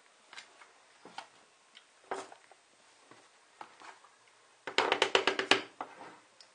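Metal spoon clicking and scraping as ice cream is scooped from a tub into a plastic blender jug. A fast run of sharp taps comes near the end, as the spoon is knocked against the container.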